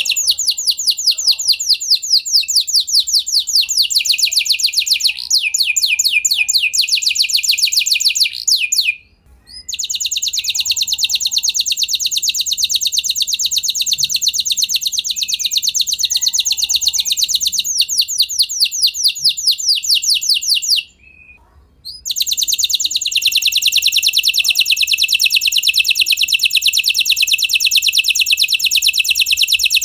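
A domestic F1 canary singing its loud song of long, very fast trills, one rolling phrase running straight into the next, with two short breaks about nine and twenty-one seconds in.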